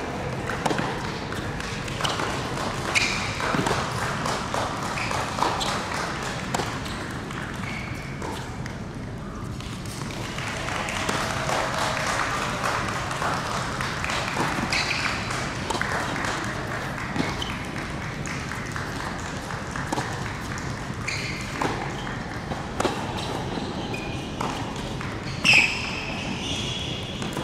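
Tennis ball being struck by rackets and bouncing on an indoor hard court, with the sharp hits echoing in a large hall over a low background of spectators. One louder sharp sound near the end.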